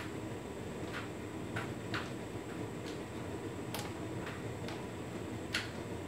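Hotpoint Ultima S-Line tumble dryer running a Standard Cottons cycle: a steady drum and motor rumble, with irregular light clicks as the load tumbles against the drum.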